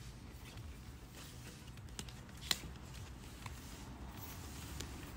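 Cardboard packaging of an Apple Watch SE being handled and opened: faint rustling and light taps, with one sharp click about two and a half seconds in, over a steady low hum.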